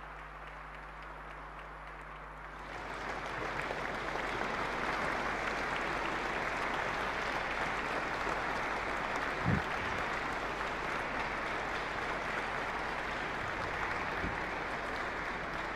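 Audience applauding in a large hall. The clapping grows louder about two and a half seconds in and then holds steady, with a single brief low thump about halfway through.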